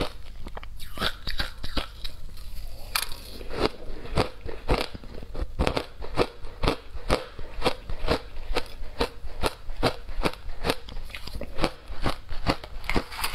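Shaved ice crunched and chewed in the mouth: a steady run of sharp, crisp crunches, about three a second.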